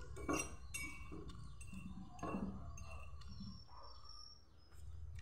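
Close-up eating sounds: chewing and mouth smacks, with a few short, light clinks.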